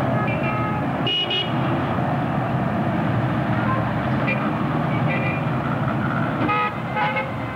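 Busy road traffic: a steady din of engines and tyres, with several short car-horn toots and voices mixed in.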